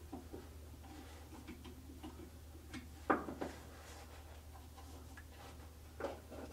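Scattered light metal clicks and taps from a steel tub suspension spring and a spring-hook tool as the spring is worked into its hole on a washing machine's tub, with a sharper click about three seconds in and another near the end. A faint steady low hum runs underneath.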